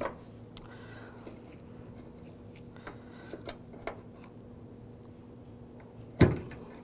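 Small light clicks of a metal pick working under the retaining clip on a hood lift support's ball-socket end, then one sharp snap about six seconds in as the socket pops off the ball stud.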